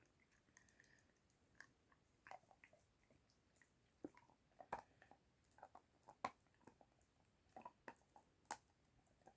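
Faint, irregular chewing and crunching clicks of a dachshund biting and chewing a chicken treat, loudest about halfway through and near the end.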